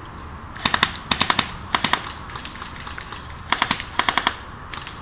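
Airsoft electric gun firing short full-auto bursts: rapid sharp clicking shots in about five quick bursts, with a pause of a second or so in the middle.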